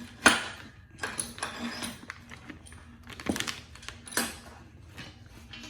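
Metal clinks, knocks and rattles as a vertical hold-down clamp is handled and fitted into a hole in a fab table, the loudest knock coming just after the start and a few more spread through.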